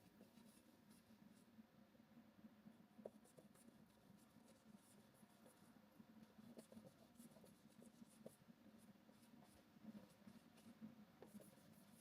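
Faint, irregular scratching strokes of an art tool moving across canvas, with a few light ticks.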